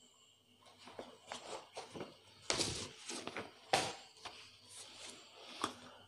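Handling noise: a string of irregular rustles and light knocks, the two loudest about two and a half and nearly four seconds in.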